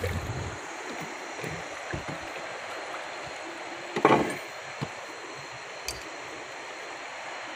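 Steady rushing of water around a boat, with a short louder sound about four seconds in.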